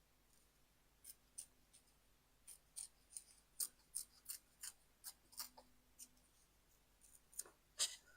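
Faint irregular crackles and snaps of a strip of paper being torn by hand, a couple of dozen short crisp ticks, the loudest near the end.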